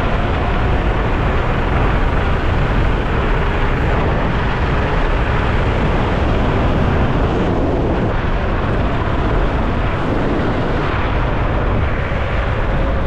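Wind rushing and buffeting over the microphone while riding a Nami Burn E electric scooter at cruising speed: a loud, steady rumbling rush, with a faint steady tone underneath.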